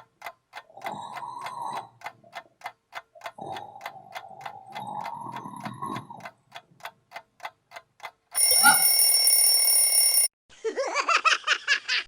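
Clock ticking steadily under slow cartoon snoring breaths, then an alarm clock rings loudly for about two seconds. A quick run of short, wavering pulsed sounds follows, then everything stops.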